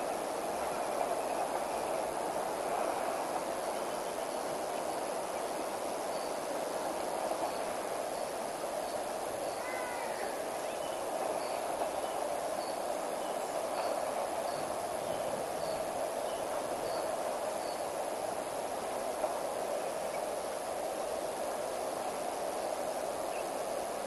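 Steady rush of river water flowing over rocks and shallows. A faint high chirp repeats about once a second through the middle, and a few brief chirping calls come about ten seconds in.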